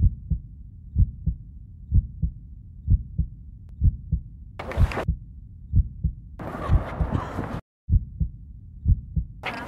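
A heartbeat: a low double thump repeating about once a second, steady throughout. Three bursts of hiss are laid over it, the longest a little past the middle, and the sound drops out for a moment just before the last burst.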